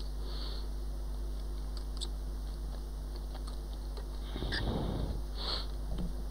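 Steady electrical hum under light clicks and rustles as gloved hands handle an iPhone 6 Plus and lower its display onto the frame, with a louder rustle about four and a half seconds in.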